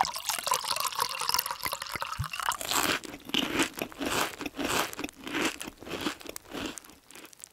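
Milk pouring onto a bowl of cereal flakes, then crunchy cereal being chewed, a crunch about twice a second for some four seconds.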